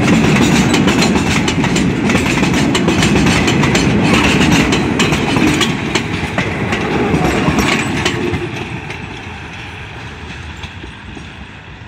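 Oil tank wagons and a passenger coach of a passing train rumbling, their wheels clicking over the rail joints; the sound fades from about eight seconds in as the last coach goes by and the train moves away.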